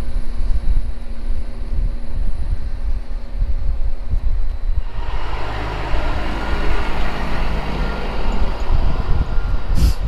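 Heavy diesel machinery running under a gusty low rumble of wind on the microphone: first a John Deere 9230 four-wheel-drive tractor working a silage pile, then, about halfway through, a louder rushing sound as a semi truck with a hopper trailer pulls away. A sharp click comes just before the end.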